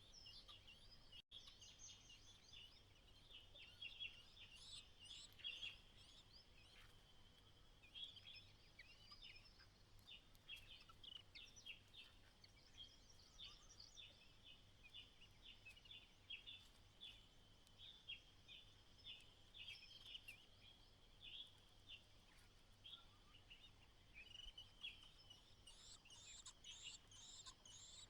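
Faint, repeated short high chirps of white-browed laughingthrushes, coming in quick runs throughout and growing busier near the end, over a faint steady low hum.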